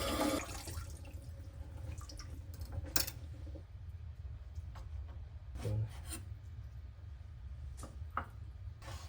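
Running water stops about half a second in. After that, a handful of separate small clicks and knocks sound over a low steady hum.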